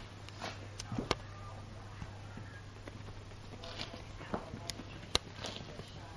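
Syrian hamster's feet pattering and scratching as it scurries over a sofa, with a few sharp clicks, over a steady low hum.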